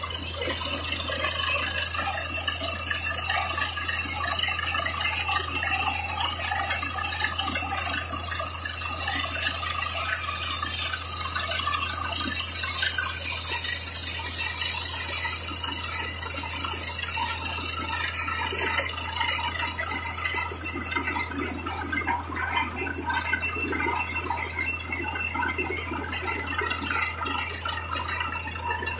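Truck-mounted borewell drilling rig at work: a steady engine drone under the rushing splatter of muddy water and rock cuttings spraying up out of the bore around the drill pipe.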